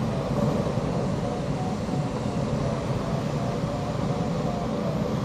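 Steady rush of air and cabin noise inside a Stemme S10 glider's cockpit in flight, with faint short beeps repeating every half second or so.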